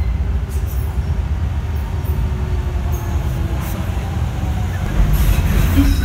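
Docklands Light Railway train running: a steady low rumble with a faint whine, growing louder about five seconds in.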